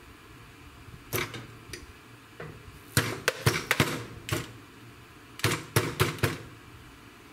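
Irregular sharp knocks and clacks of hard objects. A few single taps come first, then two quick clusters of knocks at about three and five and a half seconds in.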